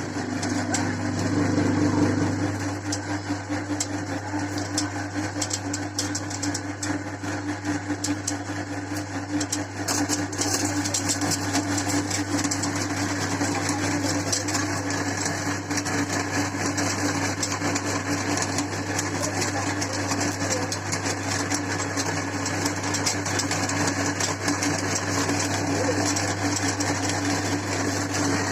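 Electric meat grinder running steadily with a constant motor hum, and a dense crackle of many sharp clicks as dry Maggi instant noodles are crushed in it.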